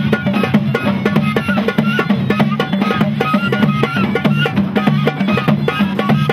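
Moroccan folk ensemble playing: a flute melody over fast, dense beating on hand-held clay goblet drums and a frame drum, with a low drone-like line stepping between two notes.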